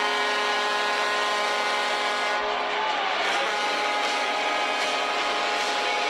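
Chicago Blackhawks arena goal horn blaring, a steady, sustained blast of several stacked tones.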